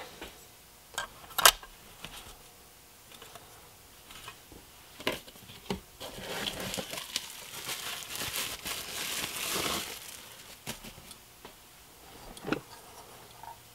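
Packaging crinkling for a few seconds as a new projector is lifted out of its cardboard box. A few separate sharp clicks of parts handled on the workbench come before and after.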